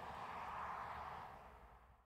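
2020 Toyota Highlander driving away: faint, even tyre and road noise that fades out over the last second or so.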